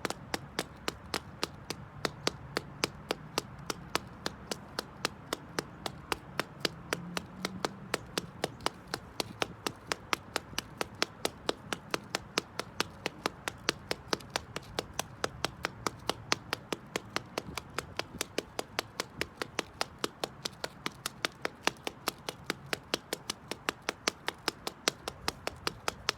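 Black slingback high heels stepping rhythmically on concrete: a steady, even run of sharp heel clicks, about three to four a second.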